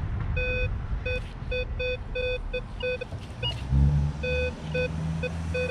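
Minelab Vanquish 440 metal detector sounding short, same-pitched target beeps over and over, about two to three a second in irregular runs, as the coil is swept over a buried target. A low steady drone joins about two-thirds of the way in.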